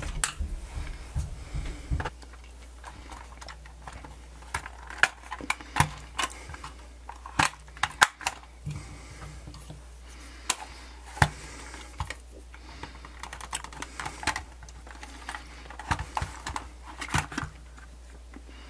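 Irregular sharp clicks and taps of small hardware being worked: a screwdriver on the tiny screws of a portable CD player's plastic back, the screws set down on the bench, and the plastic case handled and pried apart.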